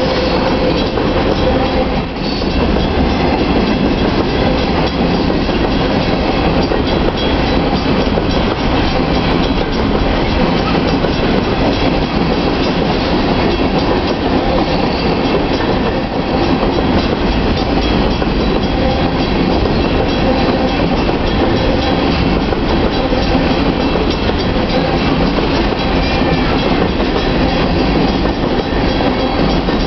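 Freight train of steel hopper cars rolling past close by: steady rumble and clatter of the wheels on the rails.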